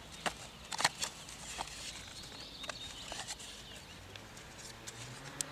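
Scattered small clicks and taps from hands working a small cardboard box and its wires, over faint birdsong outdoors. A low steady hum comes in about four seconds in.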